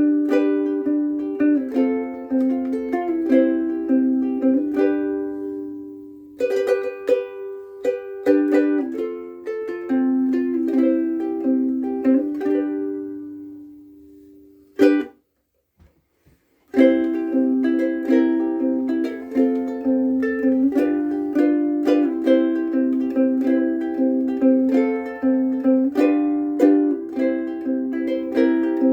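Kala Pan-Pacific koa soprano ukulele played solo, picking and strumming notes and chords. About halfway through a chord rings out and fades, one more strum, a brief break, and then the playing starts again.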